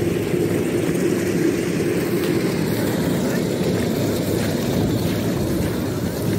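Rice combine harvester's engine running with a steady drone.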